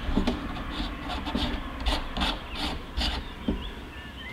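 A lens filter being handled and fitted onto a camcorder's lens close to the microphone: a run of short scraping rubs, about eight in three seconds.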